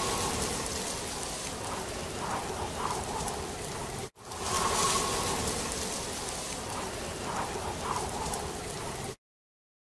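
Recorded rain sound effect, a steady hiss. The same clip of about five seconds breaks off about four seconds in, starts over, and then cuts off suddenly about nine seconds in.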